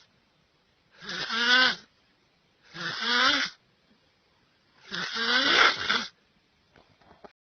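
Snoring: three long snores, each about a second, with short quiet gaps between breaths.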